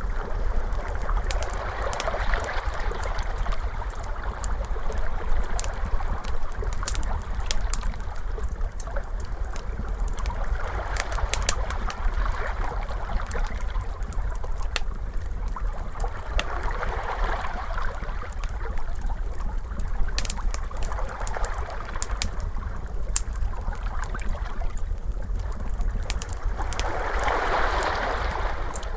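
Crackling fire with frequent sharp pops and snaps, layered over ocean waves that swell and wash out every several seconds, the biggest wave near the end, above a steady low rumble.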